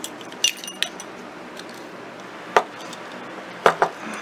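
Metal paper clips clinking against a small ceramic dish as a hand rummages through it, followed by a few light knocks of things set down on the table, the last two close together near the end.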